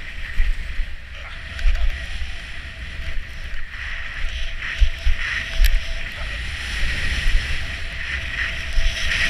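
Skis hissing steadily as they run over snow, with wind buffeting the action camera's microphone in uneven low thumps.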